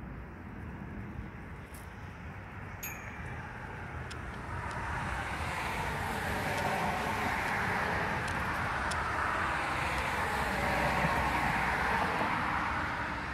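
A road vehicle passing on the street: its tyre and road noise swells over several seconds, then eases near the end, over a steady low rumble.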